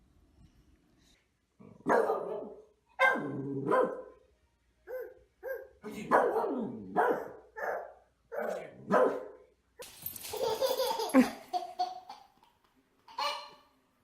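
A dog barking over and over, roughly one bark a second, with a longer drawn-out stretch about ten seconds in.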